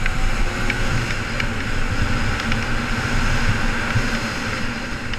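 Wind rushing over a helmet-mounted camera at around 50 mph, with the 2008 Kawasaki Ninja 250R's parallel-twin engine running hard underneath. The low wind rumble is the loudest part and the sound holds steady throughout.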